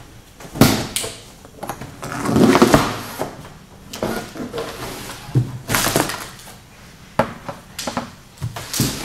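Hands unpacking a cardboard shipping box: plastic packing straps are pulled off it, with a run of sharp knocks and a longer scraping, rustling stretch about two to three seconds in.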